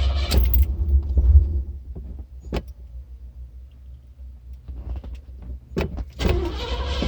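A Cadillac's engine, struggling through a hard start, turns over with a low rumble that cuts off about half a second in. A few sharp clicks sound in the quieter gap. The engine noise comes back about six seconds in, as another start attempt follows.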